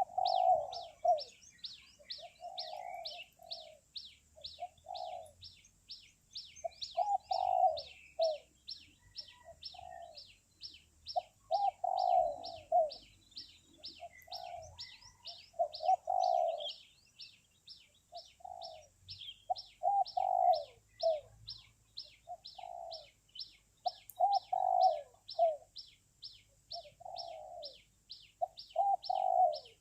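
Doves cooing in repeated short phrases of rolling low notes, one phrase every second or two, as the birds call back and forth. Behind them runs a steady rapid train of high chirps, about three a second, over a thin high hum.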